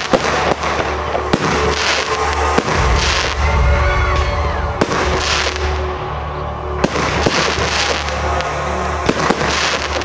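Aerial fireworks display: shells bursting in a run of sharp bangs, with patches of hissing crackle from the stars between the reports.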